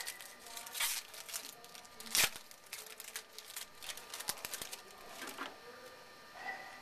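Bowman Chrome baseball cards being handled and flipped through: a quick run of light clicks and rustles, with one louder click a little over two seconds in. The handling stops about five and a half seconds in.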